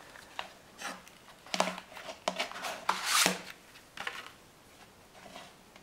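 Hands handling and turning over a metal steelbook Blu-ray case on a wooden floor: scattered light taps and clicks, with a brief sliding rustle about three seconds in.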